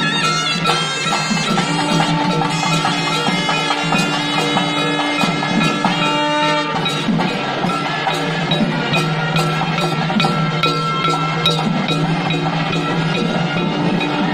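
Temple procession band playing live: a shrill reed pipe plays a wavering melody over a steady held drone, with barrel drums beating along.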